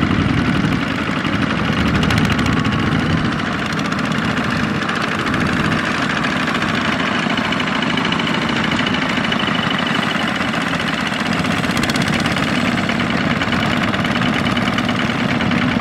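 Single-cylinder diesel engine of a two-wheel walking tractor running steadily while it pulls a trailer loaded with rice sacks, with a fast, even chugging beat.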